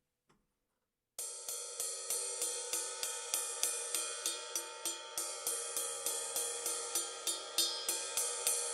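Sabian AAX 21-inch X-Plosion ride cymbal struck with a stick in a steady pattern, about three strokes a second. It starts about a second in, and the playing stops near the end, leaving the cymbal ringing.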